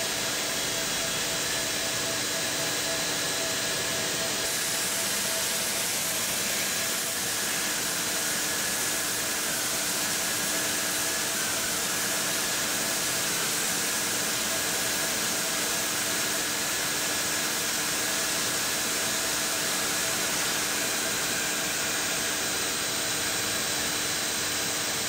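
Steady machinery noise of a reinforced-hose extrusion line running: an even hiss with a few faint steady hums underneath.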